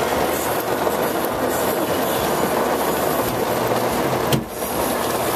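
Heavy rain pouring down in a dense, steady hiss, with a single sharp knock about four seconds in.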